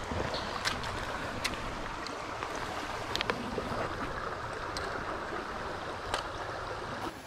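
Shallow mountain stream running over rocks close by, a steady rush of water. A handful of short sharp splashes and clicks stand out over it as a trout is handled in a landing net at the water's edge.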